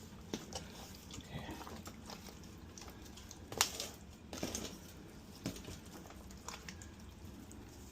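Hands working seasoning into a raw turkey: soft wet squelching and scattered small knocks and clicks, with one sharper knock about three and a half seconds in.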